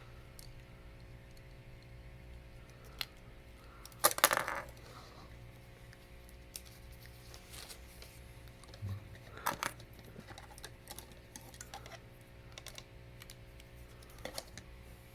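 Hard plastic clicks and clatter of Lego Hero Factory pieces being handled and snapped together, with a louder cluster about four seconds in and another near ten seconds, over a faint steady hum.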